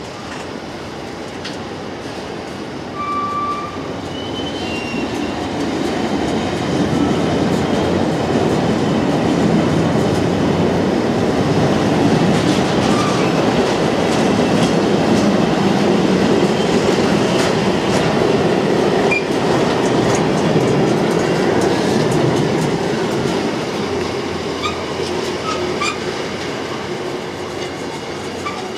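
Freight train of enclosed car-carrier wagons rolling past: a steady rumble of wheels on rail that builds, peaks in the middle and fades away. There are a few brief wheel squeaks near the start, and sharp clicks over rail joints in the second half.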